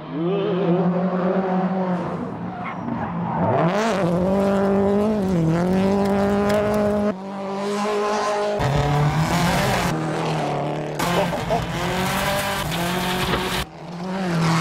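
Subaru Impreza rally car's turbocharged flat-four engine revving hard while the car is drifted, its pitch rising and falling with each throttle blip, with tyre squeal. The sound changes abruptly several times as it switches between inside the cabin and outside the car.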